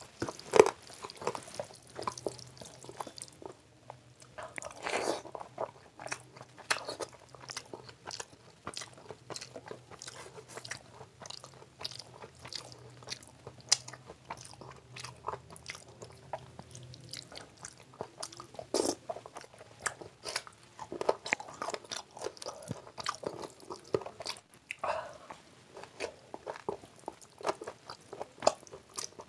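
Close-miked eating by hand: chewing, smacking and wet mouth sounds of a mouthful of rice and palak (spinach) curry, with fingers squishing and mixing the wet rice and curry on a steel plate. The sounds come as many short irregular smacks and clicks throughout.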